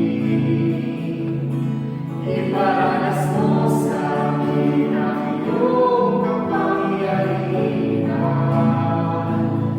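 Congregational worship song: voices singing together in sustained phrases over instrumental accompaniment.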